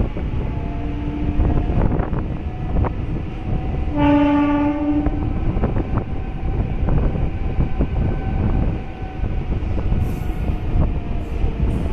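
MEMU electric local train running on the rails, with a steady rumble and repeated clicks from the wheels over rail joints. The train horn sounds once for about a second near the middle.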